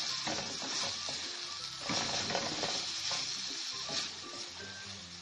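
Beef mince frying in oil in a steel pot, sizzling steadily as it is stirred with a wooden spoon, with short scraping strokes of the spoon. The oil has separated and the mince is being browned dry at the bhuna stage, with chopped green onions just stirred in.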